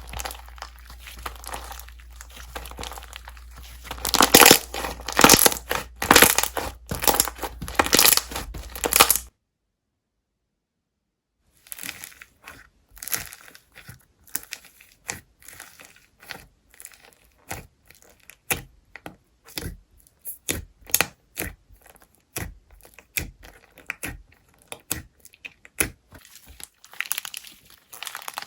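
Slime being squished, stretched and poked by hand, making dense crackling, crinkling and tearing noises that are loudest about four to nine seconds in. About nine seconds in, the sound cuts out completely for about two seconds. It then returns as scattered sharp pops and clicks.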